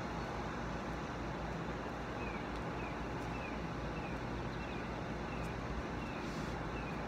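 Steady outdoor background rumble and hiss, with a small bird repeating a faint, short falling chirp about twice a second from about two seconds in.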